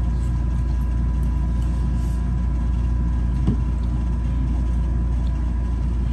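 A steady low mechanical hum, with a faint high tone above it and one light click about three and a half seconds in.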